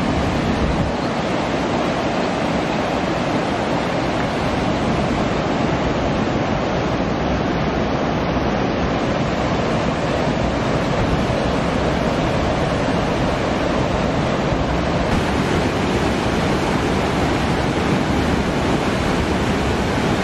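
Steady rush of a shallow rocky river pouring over a low concrete weir and cascading among boulders.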